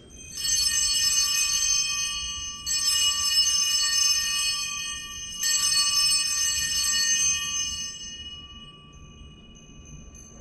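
Altar bells rung three times, about two and a half seconds apart, each ring a bright, jingling chime that fades slowly. They mark the elevation of the chalice after the consecration at Mass.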